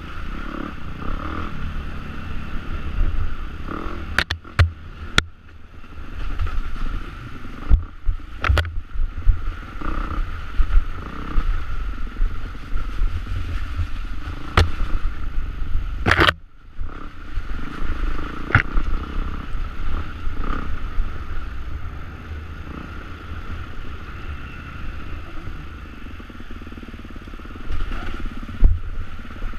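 Enduro motorcycle engine running and revving as the bike is ridden over rough, rutted ground, with frequent sharp knocks and clatter from the bike hitting bumps. The loudest crack comes about 16 seconds in, followed by a brief drop in the engine sound.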